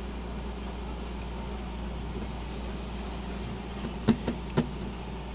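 A steady low hum with three quick, sharp clicks close together about four seconds in.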